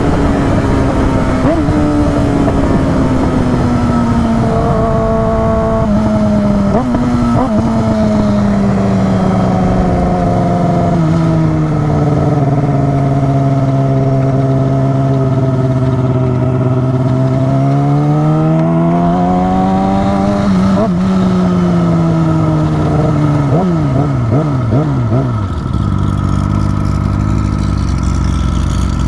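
A vehicle engine running loud. Its pitch falls slowly over about twelve seconds, then holds low. Past the middle it rises and falls back, then wavers up and down quickly for a couple of seconds, as in a run of throttle blips, before settling to a low steady note near the end.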